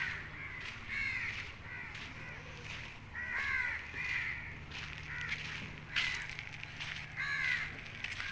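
Birds calling over and over: short, arching calls, about one a second and sometimes overlapping, over a steady low hum.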